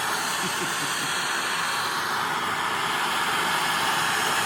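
Steady blowing hiss of a heating tool, heating a steel bracket so it can be bent into a throttle cable bracket.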